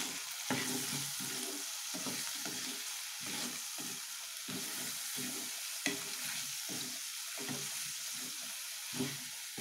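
Ivy gourd and onions frying in oil in a kadhai, stirred with a wooden spatula as the masala is mixed in: a steady sizzle with repeated scraping strokes, roughly two a second.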